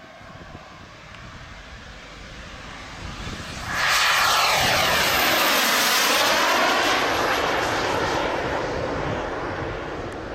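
Jet turbine of a giant-scale Yakovlev Yak-130 RC model jet at full power for take-off and climb-out: a whooshing, whining rush that builds as it rolls. It turns sharply louder, with a high whistle, about four seconds in, and fades again as the model climbs away.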